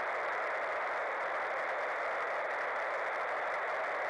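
Steady hiss of static from a VHF radio receiver tuned to the International Space Station's downlink, with no voice on the channel: the gap while the ground station answers on the uplink, which this receiver does not pick up.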